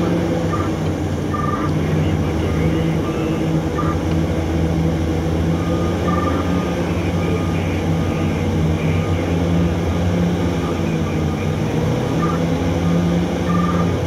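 Heavy diesel engines of a Hitachi EX3600 mining excavator and a haul truck running with a steady low hum while the excavator digs and loads. Faint short high tones come and go over it now and then.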